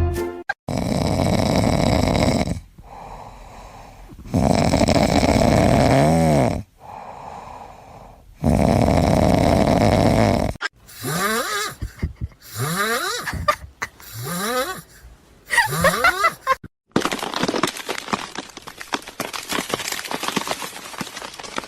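A pet snoring loudly: three long snores about four seconds apart. These are followed by five short pitched animal calls, about one a second, and then a steady hiss.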